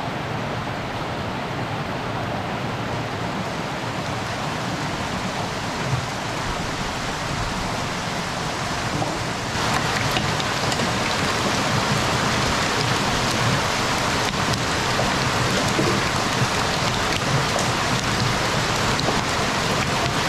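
Water gushing from several outlet pipes and splashing into fish-farm holding tanks, a steady rushing noise that grows louder about halfway through.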